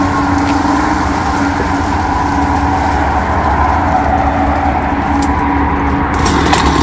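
Two-stroke chainsaw running steadily at a constant speed.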